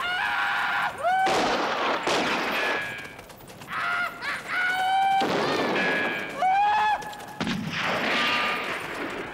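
Several gunshots with long echoing tails, mixed with repeated high, wavering yells that swoop up and down: a man imitating a Sioux war cry.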